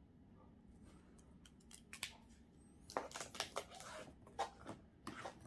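Handling noise from the recording phone or camera as it is picked up and moved: a run of sharp clicks and scratchy rustles, with a sleeve brushing past it. The sounds begin about a second and a half in and grow densest near the end.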